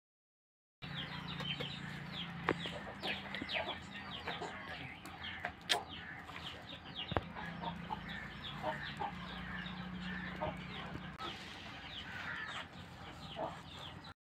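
Chickens clucking, with many quick, high, falling chirps from small birds and a faint steady low hum underneath. The sound starts abruptly about a second in and cuts off just before the end.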